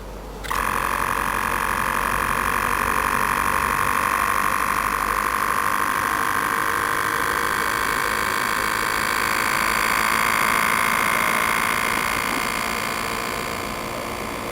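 A small electric motor starts about half a second in and runs steadily, whirring with several steady tones.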